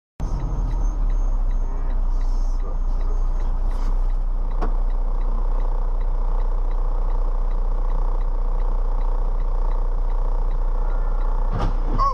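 Steady street traffic noise with a low rumble. Near the end come a couple of sharp knocks and a brief squeal as a light-rail train strikes a car broadside.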